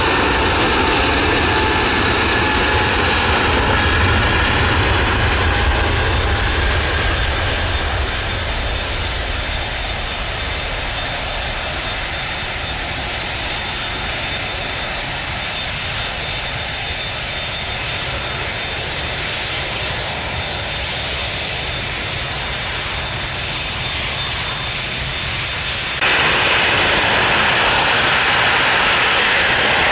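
Airliner jet engines running loud with a steady high whine over a deep rumble, fading after about eight seconds to a quieter steady roar. About 26 seconds in the sound jumps suddenly back to loud engine noise.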